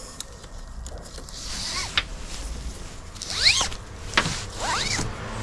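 Nylon tie-down strap webbing zipped through its buckle in two quick pulls, with a couple of sharp clicks from the buckle.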